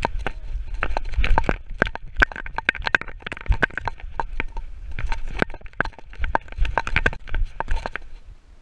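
Rapid, irregular clicking and rattling from a camera harness worn by a running dog, its metal fittings knocking with each stride, over low thumps and rumble from the dog's movement. It tails off near the end as the dog slows.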